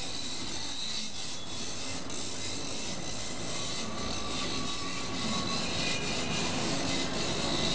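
Steady outdoor background noise, an even hiss and low rumble with a faint high whine, with no distinct events.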